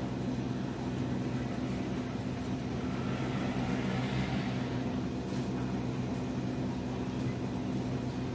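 Steady low hum of a machine running, with a faint rustle of cotton yarn being drawn through by a crochet hook about three to four seconds in.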